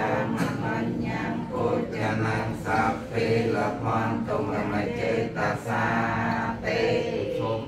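Buddhist monks chanting Pali verses together in a steady, unison recitation that stops at the very end.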